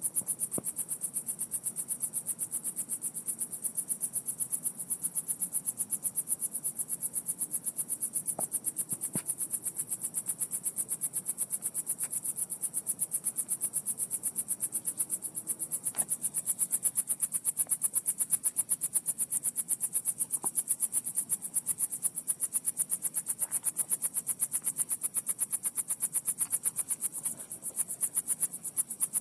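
Crickets chirping in a fast, steady, unbroken pulse, high-pitched and loudest. Beneath them a faint low rumble, which the uploader likens to a bad speaker or a leaking car muffler and cannot identify, with a few faint ticks.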